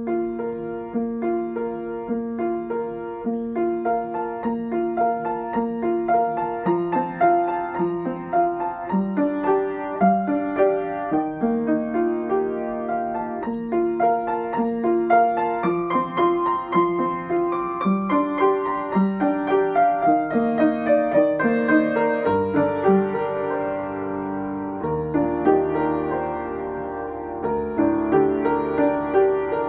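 Upright piano played with both hands: a melody over repeated accompanying notes. Deep bass notes come in and are held for the last several seconds.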